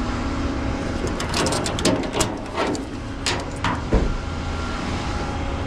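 Tow truck engine running steadily, with a burst of about eight sharp metallic clanks and knocks in the middle, the loudest near the end of the burst.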